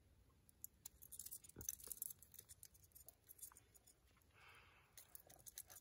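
Near silence with faint, scattered little clicks and rustles of monofilament fishing line being threaded by hand through the snap and eye of a Jitterbug lure.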